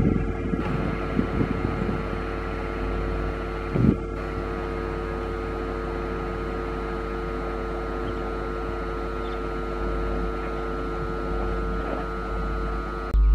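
Passenger train running away at speed down the track: a steady rumble and rush of the coaches with a constant droning hum. Irregular low knocks come in the first couple of seconds, and one sharper jolt about four seconds in.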